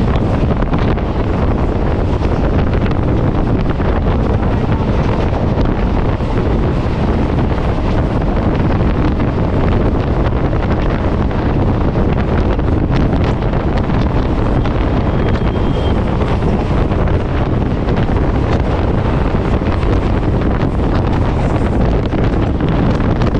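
Wind buffeting the microphone at the door of a moving passenger train, over the steady running noise of the train.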